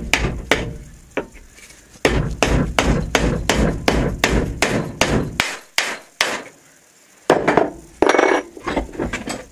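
Hammer blows on a steel punch driving the old wooden handle out of a hatchet head held in a vise. A few strikes open it, then a fast run of about three blows a second for three seconds, two more, a stretch of handling noise, and a last few blows near the end.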